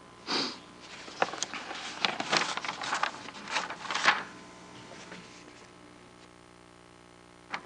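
Irregular rustling and handling noises, soft scrapes and taps, for about four seconds, then a quiet room with a low steady hum and a single click near the end.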